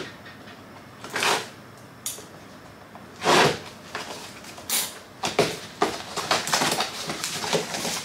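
Cardboard box being handled and opened: separate rustling and scraping noises, the loudest about three and a half seconds in, then a quick run of short cardboard rustles and flap noises toward the end.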